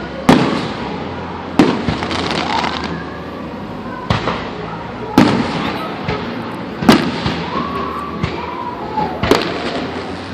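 Aerial fireworks bursting: a string of sharp booms about every one to two seconds, each trailing off in crackle and echo.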